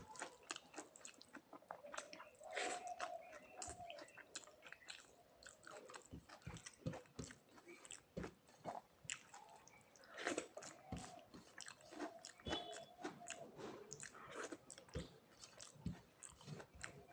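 A person eating close to the microphone: steady chewing with irregular crunches and wet mouth clicks.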